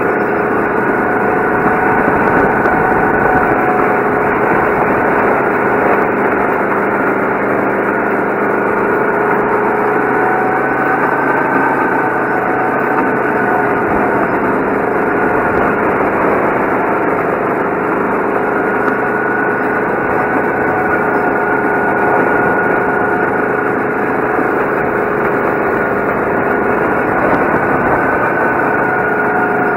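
Go-kart engine running hard at a steady speed, heard from the kart itself. Its note rises and falls a little through the corners.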